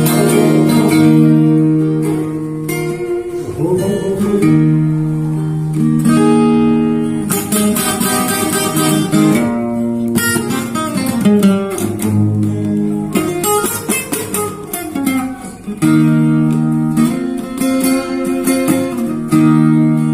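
Acoustic guitar playing an instrumental break with no singing: held strummed chords alternating with quick picked melodic runs.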